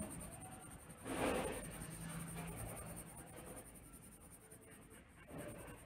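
Colored pencil scratching on paper, a short stroke about a second in and a fainter one near the end.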